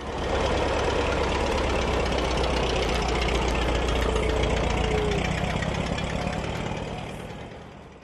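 Engine of an old-style wooden-bodied bus running as it pulls away, fading out over the last few seconds as it drives off.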